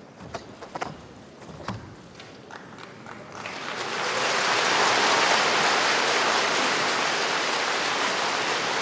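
A few sharp snaps, typical of a karate gi cracking and feet striking the mat during a kata, then from about three and a half seconds in a steady, loud wash of audience applause.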